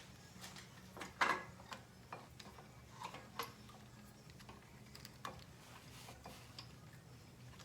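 Light clicks and taps of small parts being handled while a voltage regulator is tried on its mounting bracket, the loudest about a second in, over a faint steady hum.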